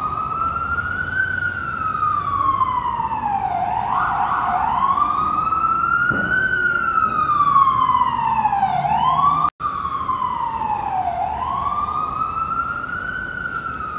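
Emergency vehicle siren sounding a slow wail, its pitch rising for a second or two and falling for two or three seconds, over and over. The sound drops out for an instant about nine and a half seconds in.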